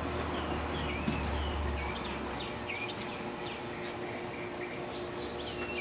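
A small bird chirping over and over in short, sharp notes, with a low rumble that fades out about two seconds in and a light knock about a second in.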